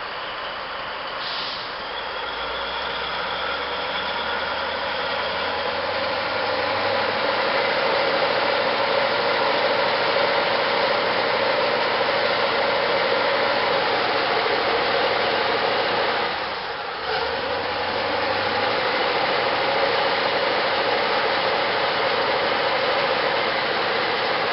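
Diesel engine of a Caterpillar 777 haul truck running under heavy load as it strains against a tow strap, a steady loud drone that swells over the first several seconds, dips briefly about two-thirds of the way through, then picks up again.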